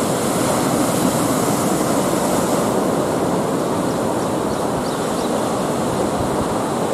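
Steady rushing noise of sea surf breaking on rocks and sand, with wind on the microphone.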